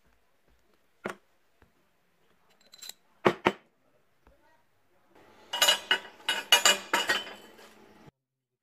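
Ball bearings and a metal shaft clinking together as they are handled: a few single clinks, then a dense rattling run of clinks for about three seconds that cuts off suddenly.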